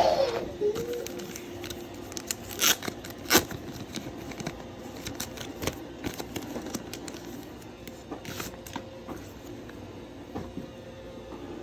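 Handling noises: scattered sharp clicks and rustles of plastic parts being fitted and moved, the two loudest clicks about three seconds in, over a faint steady hum.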